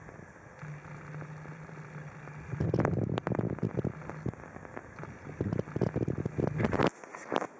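A cat licking and nibbling at its fur close up: rapid wet tongue clicks and smacks, starting about two and a half seconds in and going on until near the end, over a low steady hum.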